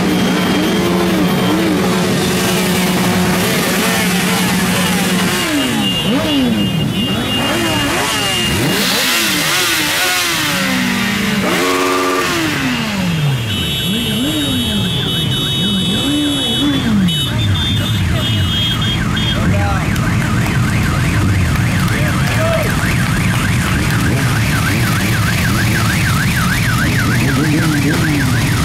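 Many sport motorcycles revving their engines again and again, their pitch sweeping up and down in overlapping waves. A steady held tone runs through the first five seconds, and another short one comes about twelve seconds in.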